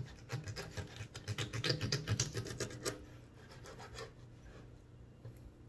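Kitchen knife sawing through the head of a round scad (galunggong) on a plastic cutting board: a rapid run of short scraping strokes for about three seconds, then fainter, sparser ones.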